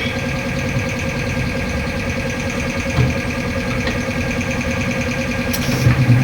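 A motor-driven machine running steadily with a fast, even pulse, with a sharp knock about three seconds in and louder knocks near the end.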